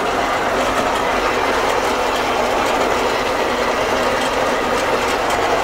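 Fortschritt E 303 self-propelled mower running under load as it mows, heard from inside the cab. Its diesel engine runs at raised revs under a steady mechanical clatter from the cutting header.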